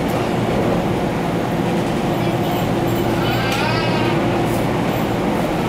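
Cabin running noise of a JR 489-series limited express electric train at speed: a steady rumble of wheels on rails and car noise. A short voice is heard in the car about three seconds in.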